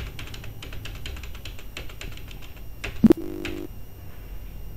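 Computer keyboard keys clicking in quick runs as data is entered into an accounting form. About three seconds in comes a loud knock, then a short low tone of about half a second.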